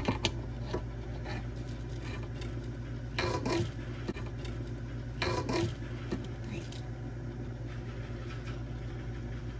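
Small ice cream scoop scraping cheesecake filling from a mixing bowl and knocking against the bowl and cups, in short clusters of clicks and scrapes about two seconds apart. A steady low hum runs underneath.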